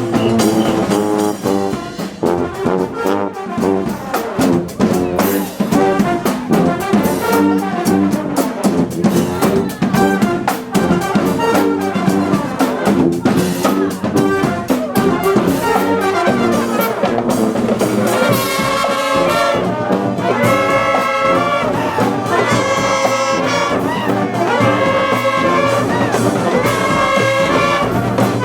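Brass marching band playing live, with trumpets, trombones and sousaphone over drums. From about two-thirds of the way in, the horns repeat a short riff over and over.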